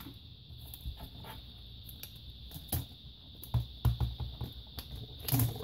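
Light plastic clicks and knocks of a laptop keyboard being lifted and handled against the plastic chassis, sparse at first, then a cluster of sharper knocks in the second half.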